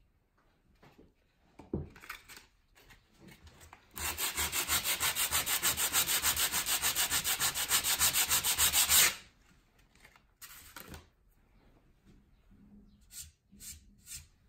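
A sanding block is rubbed quickly back and forth over a wooden board, about eight strokes a second for roughly five seconds, sanding a knot-filler repair flush. There is a knock about two seconds in and a few short rubs near the end.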